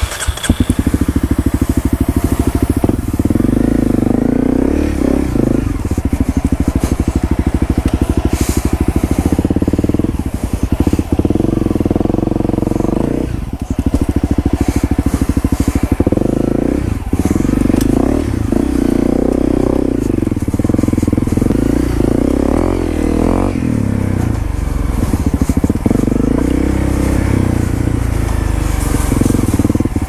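2015 Honda CRF250L's single-cylinder four-stroke engine, fitted with an FMF Powercore 4 slip-on exhaust, running under load on a dirt trail ride. The revs rise and fall, dropping off briefly a few times.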